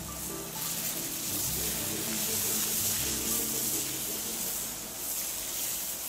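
Background music over a steady hiss of dry rice grains pouring from a metal pot into a large paella pan of simmering broth; the hiss is strongest from about half a second in until about five seconds.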